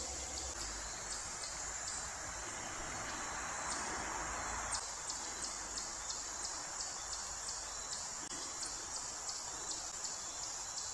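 Insects chirping steadily: a high, pulsing trill at about three chirps a second, with a soft rushing noise underneath during the first few seconds.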